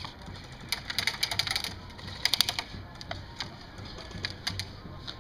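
Airsoft guns firing: a rapid burst of sharp clicks about a second in, a shorter burst a little past two seconds, then scattered single shots.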